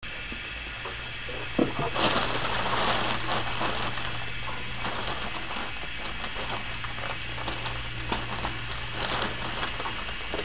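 Plastic bag liner crinkling and rustling as it is handled and spread across the sealing jaws of a bag-in-box vacuum sealer, with scattered light clicks, over a steady low hum. The rustling grows louder about two seconds in.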